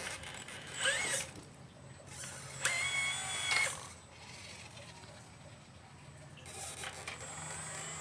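Electric motors of a 1/12-scale RC excavator whining in two short bursts: a brief rising whine about a second in, then a longer steady whine that starts around two and a half seconds and lasts about a second. A faint mechanical hum runs between and after them.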